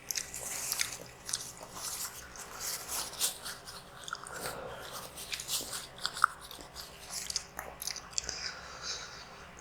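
Close-miked chewing of spicy instant noodles: a quick run of wet mouth clicks and smacks, with one sharper click about six seconds in.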